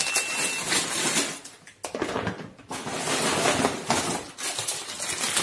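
Plastic grocery bags and packaging rustling and crinkling as groceries are handled and pulled out of a reusable shopping bag, with a brief lull about two seconds in.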